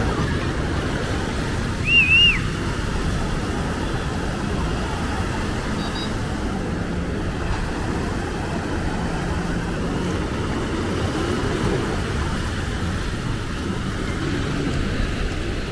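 Steady street ambience of passing traffic, with a short high chirp about two seconds in.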